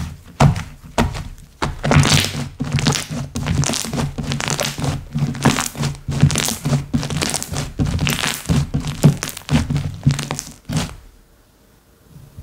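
Slime being squished and pressed by hand: a quick run of pops, clicks and soft thunks, several a second, which stops about eleven seconds in.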